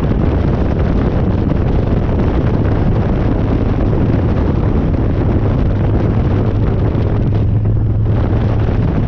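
Harley-Davidson Dyna's air-cooled V-twin engine holding a steady drone while riding at cruising speed, under heavy wind rush on the microphone.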